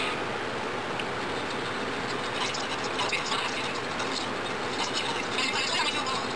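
Pencil scratching on paper while drawing and shading: a dense rasping hiss with irregular short strokes.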